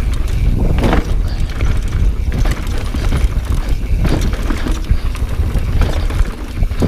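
Transition Sentinel mountain bike rolling fast over rocky singletrack and slickrock, its tyres and frame clattering over the rocks, with a deep wind rumble on the camera microphone.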